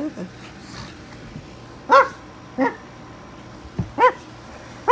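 A pug giving short, high whining cries, each rising and falling in pitch, about four in all: two close together about two seconds in and two more near the end. The dog is crying for its owner's attention.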